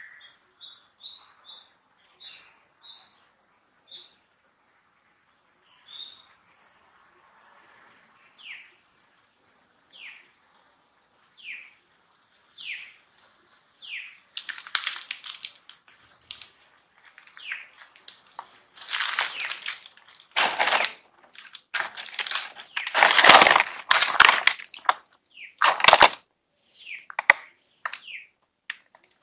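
High chirping calls in a quick run, then short falling squeaks about every second and a half. Over the second half come loud, harsh squealing bursts, the loudest about two-thirds of the way through.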